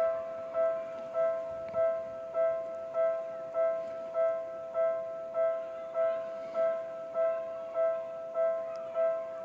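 Japanese level-crossing warning bell ringing: an electronic two-tone ding repeating steadily, a little under two strikes a second. It is the signal that a train is approaching and the crossing is closing.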